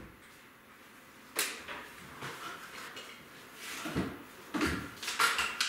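A few scattered knocks and clacks as a cabinet jack's extension pole and prop are handled and released under a wall cabinet: a sharp clack about a second and a half in, duller thumps near the end, then quick clicks.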